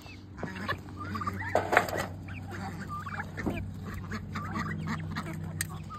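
Chickens and white turkeys clucking and chirping in short calls as they crowd around food scraps, with a few sharp clicks among them.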